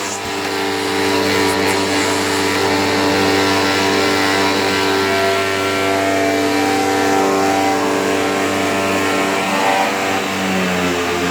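Sharp Twin Energy EC-TU2709S upright vacuum running steadily, its Ametek motor giving a steady whine. The pitch shifts about ten seconds in.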